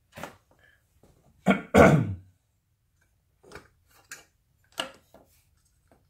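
Scattered clicks and light metal knocks as a steel clutch pedal is fitted onto the pivot of a BMW E46 pedal box. A man clears his throat in two short bursts about a second and a half in, the loudest sound.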